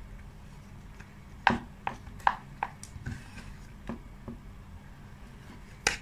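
Metal spoon scraping and knocking inside a clear plastic cup of ice cream: about seven sharp clicks, the last and one of the loudest just before the end.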